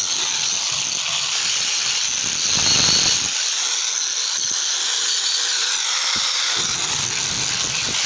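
Angle grinder cutting granite: a steady, loud, hissing grind with a faint high whine, swelling briefly about three seconds in.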